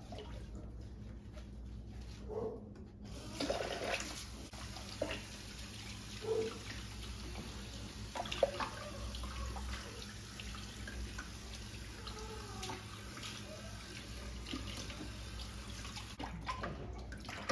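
Kitchen faucet sprayer running water over a soapy puppy being rinsed in the sink. The spray comes on about three seconds in and then runs steadily, with a few short faint squeaks over it.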